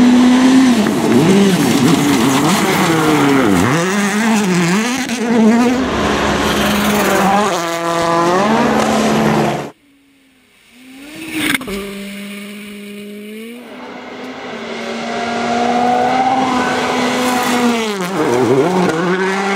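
World Rally Cars' turbocharged four-cylinder engines at full attack: a car passes close with revs climbing and dropping through gear changes. The sound cuts off abruptly just before halfway, then a second car is heard approaching, its revs rising steadily, and passing near the end.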